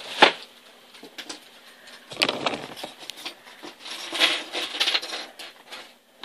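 Small metal and plastic sewing-machine accessories tipped out of their packet and clattering onto a tabletop, with packaging rustling. A sharp clack comes just after the start, then bouts of clinking and rubbing about two and four seconds in.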